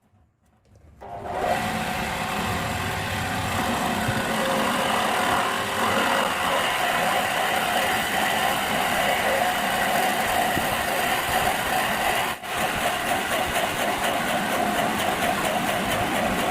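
Wood lathe starting up about a second in and then running steadily, with one brief drop in level near the end.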